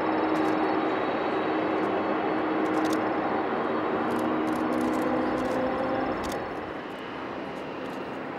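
Jet engines of a Boeing 747 freighter running at taxi power: a steady roar with a low hum. A little after six seconds in the sound drops to a quieter steady jet noise, that of a Fokker 70 taxiing.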